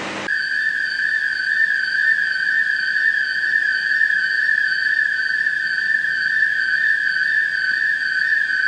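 A single steady high-pitched tone, like a held whistle, with fainter overtones above it. It cuts in abruptly at the start and holds with a slight waver.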